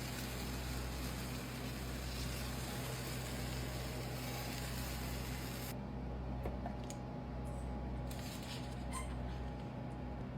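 Steady low hum with a faint hiss, with a few faint clicks in the second half; the hiss drops out a little past halfway.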